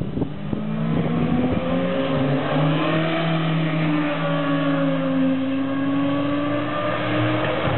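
Motorcycle engines passing close on a mountain road: the engine note rises as a bike accelerates through the bend, then shifts lower about five seconds in as it goes by.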